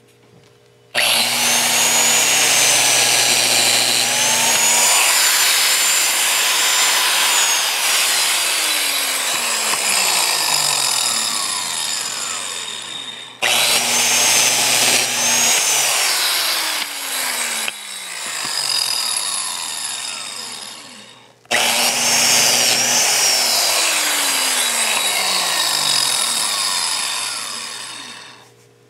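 Porter-Cable biscuit joiner switched on three times, cutting biscuit slots in the board edges. Each time the motor starts suddenly and runs with a high whine, then winds down with a falling pitch before the next start.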